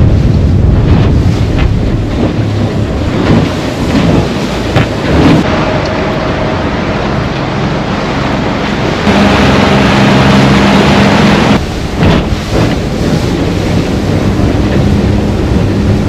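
Honda outboard motor running as the boat cruises, with water splashing against the hull and wind buffeting the microphone. The engine note strengthens for a couple of seconds past the middle.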